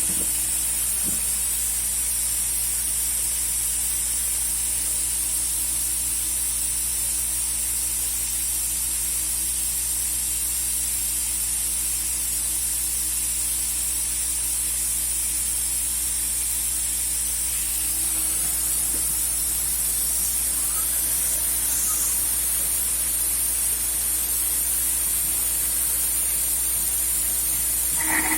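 CNC router spindle running at high speed with a steady high-pitched hiss as the cutout bit works through the stock, a steady lower hum underneath.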